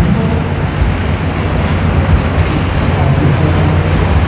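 A motorboat engine running steadily, with wind buffeting the microphone and choppy water splashing.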